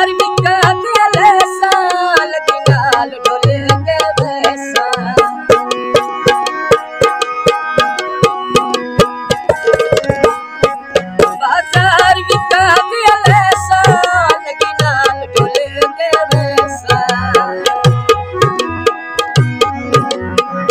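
Tabla and harmonium playing a Punjabi mahiye tappe folk tune: a quick run of sharp tabla strokes under the harmonium's sustained reedy chords and melody.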